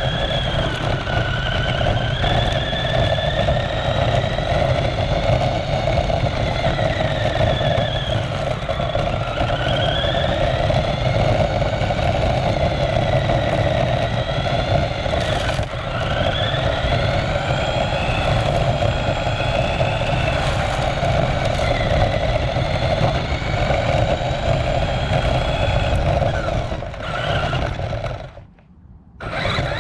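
Remote-control car running, heard from a camera mounted on the car: a motor whine that rises and falls with speed over a steady drivetrain and tyre rumble. The sound drops away for about a second near the end, then picks up again.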